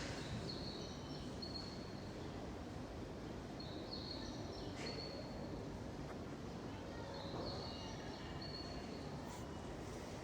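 A bird calling three times, short high chirps about three seconds apart, over steady background noise.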